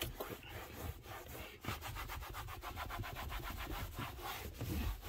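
Microfiber towel scrubbing a leather car seat by hand, working cleaner into drink spots. It settles into fast, even back-and-forth strokes about a second and a half in.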